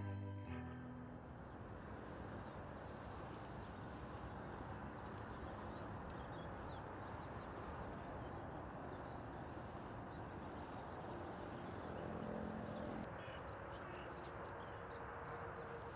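Guitar music ends in the first second, then steady, low outdoor background noise with a few faint bird chirps.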